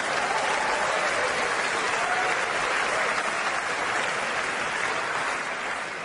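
Studio audience applauding, dying away near the end.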